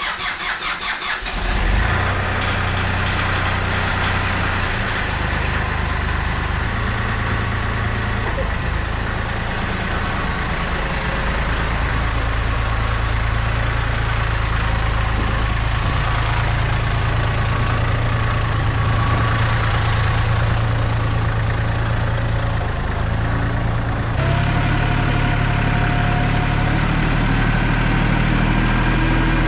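Ford 1710 tractor's three-cylinder diesel engine cranked over by the starter, catching about two seconds in, then running steadily. Near the end the sound changes suddenly as the tractor is driven out of the garage.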